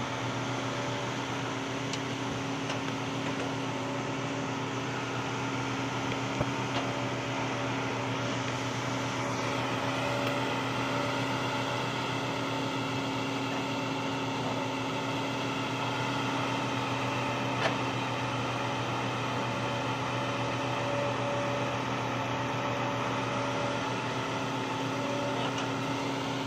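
Heavy diesel machinery, a tracked excavator and a dump truck, running with a steady, even drone and a few sharp knocks.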